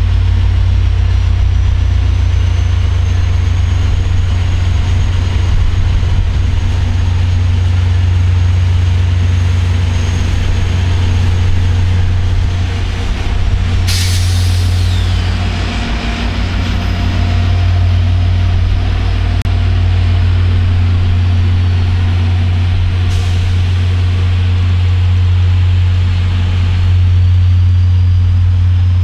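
Diesel locomotive running with a steady low rumble. About halfway through, a sudden hiss falls away in pitch over a couple of seconds.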